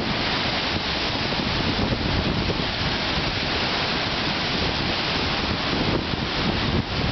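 Wind-driven lake waves breaking and splashing against a wooden dock and its log crib, with strong wind buffeting the microphone.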